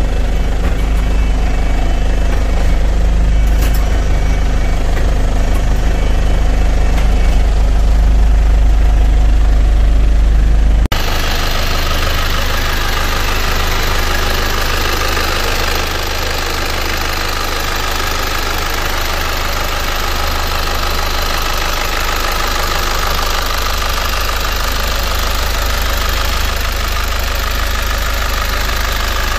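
Hyundai County minibus's 3.9-litre four-cylinder common-rail diesel idling steadily. At first it is a deep rumble heard inside the cab; after a cut about eleven seconds in it is heard up close at the open engine bay, with less low rumble and more higher-pitched mechanical noise.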